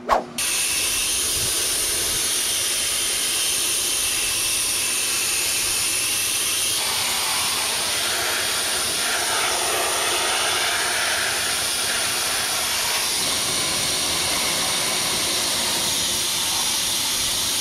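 Sandblaster blasting rust off the truck's sheet metal: a steady hiss of compressed air and abrasive, its tone shifting about seven seconds in.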